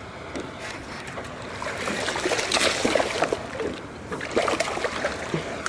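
Water splashing and sloshing around a small jon boat in irregular bursts, loudest about two to three seconds in and again near the end.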